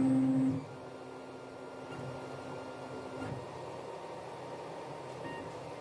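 FDM 3D printer running, its stepper motors whining in steady tones as the print head moves across the bed laying down support material. The whine is loudest for about the first half second, then carries on quieter with a higher tone until about three seconds in, when the tones stop and a steady machine hum remains.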